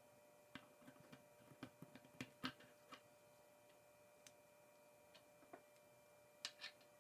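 K'NEX plastic connectors and rods clicking against each other and snapping into place as they are handled and fitted: a scattering of sharp, irregular clicks, the loudest about two and a half seconds in.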